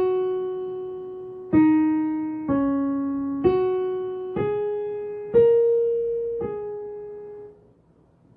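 Digital piano playing a slow tune of seven single notes on the black keys, each struck and left to ring and fade. The tune steps down three notes, then climbs back up and ends one step below its highest note.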